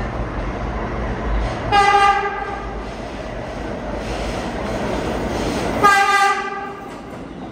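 Horn of an R211A New York City subway train sounding two short blasts about four seconds apart, each a single steady tone, over the running rumble of the train.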